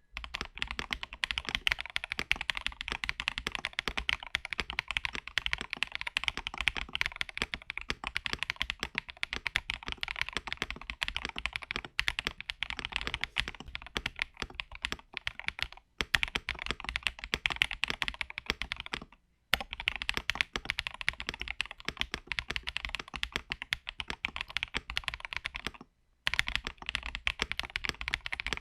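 Fast, continuous typing on an Akko ACR Top 75 acrylic top-mount mechanical keyboard with Crystal Wine Red linear switches, its lower silicone dampener removed. The clicks come densely, with brief pauses about 16, 19 and 26 seconds in.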